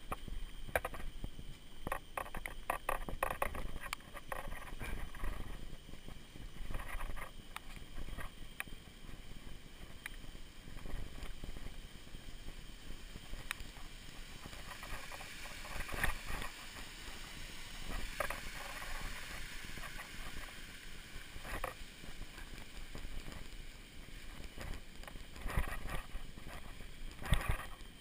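Mountain unicycle ridden over a dirt trail, heard from a camera worn by the rider: an irregular run of knocks, clicks and rattles as the wheel bumps over the ground, over a steady hiss that grows louder for a few seconds about halfway.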